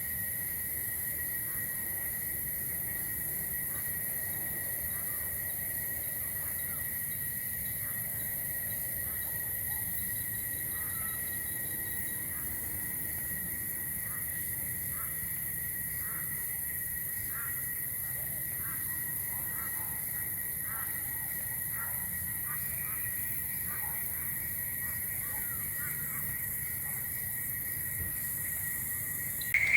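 A steady chorus of insects, one a continuous high-pitched trill, with a run of short, repeated calls about a quarter of the way in that carry on until near the end.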